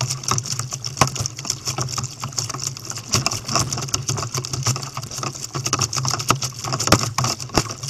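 Sea water slapping and splashing against a plastic sit-on-top kayak's hull and the paddle blades dipping as it is paddled through choppy water, heard as a dense, irregular crackle of ticks and splashes over a steady low hum.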